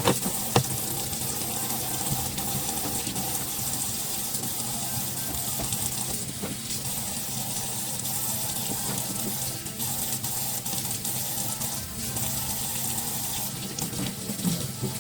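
Kitchen sink tap running in a steady stream into the sink, with a couple of sharp clinks near the start.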